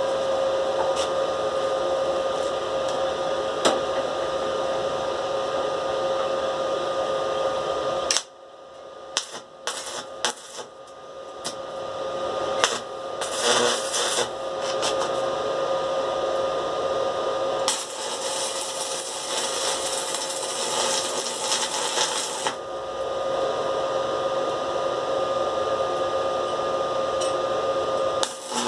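A small power tool's motor running steadily with a constant whine. It stops about eight seconds in, a few clicks and knocks of handling follow, and then it runs again for the rest of the time.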